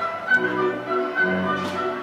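Orchestral music, with string instruments playing held notes that change every half second or so.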